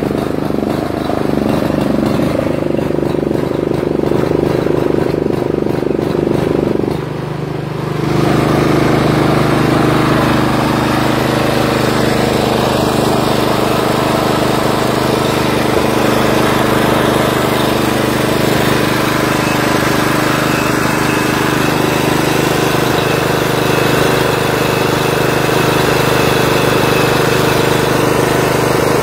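Craftsman riding lawn mower's engine running steadily as the mower drives across grass. About seven seconds in the sound drops briefly, then it comes back louder and fuller, with more hiss, and holds steady.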